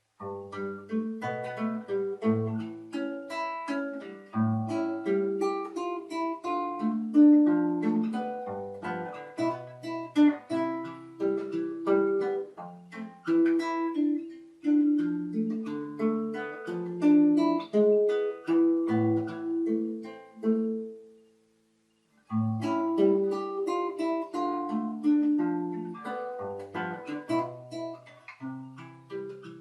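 Acoustic guitar playing an instrumental melody, notes plucked one after another with bass notes underneath. The playing stops for about a second two-thirds of the way through, then picks up again.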